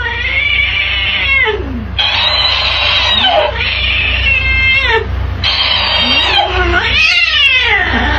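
A cat yowling in long wails that rise and fall in pitch, back and forth with a talking-hamster plush toy that plays the sounds back in a higher, sped-up voice. The exchange repeats several times.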